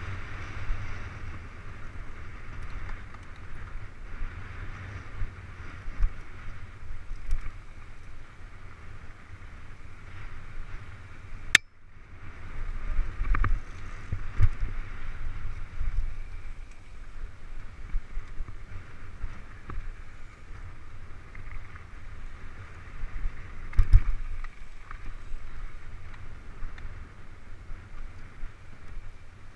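Mountain bike riding fast down a dirt singletrack, heard through an action camera: a steady wind-and-trail rumble with occasional knocks and rattles as the bike hits bumps. A sharp click and a brief dropout break it about twelve seconds in.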